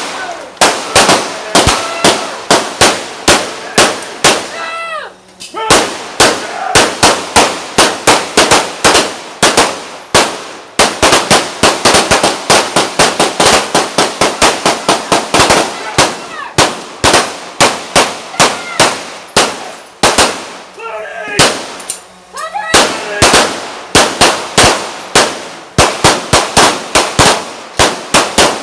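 Rapid gunfire, several shots a second in long strings, with a short lull about five seconds in and another about twenty-one seconds in.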